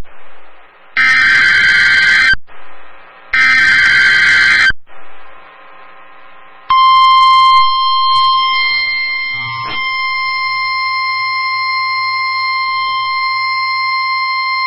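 Emergency Alert System SAME header: two loud, screeching digital data bursts about a second and a half long with a short gap between them, marking the start of a new alert. About seven seconds in, a long, steady single-pitched attention tone begins.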